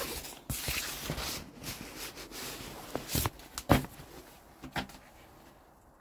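Handling noise: rustling, then a few sharp knocks and clicks about three and five seconds in.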